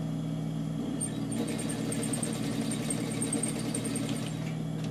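Electric sewing machine running steadily, stitching a seam.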